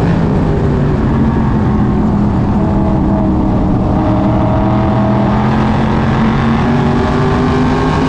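SK Modified race car's V8 engine running hard, heard from inside the cockpit at racing speed over wind and road noise. Its pitch sits low through the early part and climbs steadily toward the end as the revs build.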